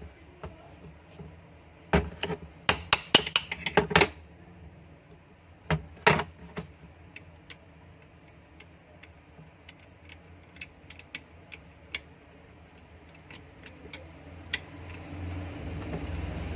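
Metal clicks, taps and clatter from exhaust-fan parts and tools being handled during reassembly after a bearing change. A burst of knocks comes about two to four seconds in and another around six seconds, followed by sparse light ticks, and a low steady noise builds near the end.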